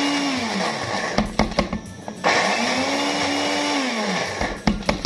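Countertop blender pulsed twice, its motor speeding up, holding and winding down each time, as it grinds soaked split mung beans with coriander, onion and garlic. A few sharp knocks near the end.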